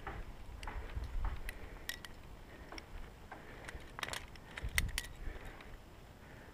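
Scattered metallic clinks of climbing gear, carabiners knocking together, mixed with scrapes and knocks of movement on rock, over a low rumble of wind on the microphone. The clinks come thickest about four to five seconds in.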